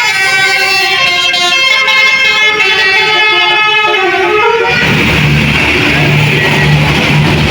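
A bus's Basuri 'telolet' multi-trumpet musical horn playing a stepping melody of several tones, which stops about two-thirds of the way through, leaving loud bus engine and traffic noise with a steady low hum.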